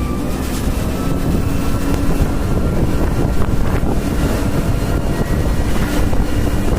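Mobile crane's heavy engine running steadily with a deep rumble, with wind noise on the microphone.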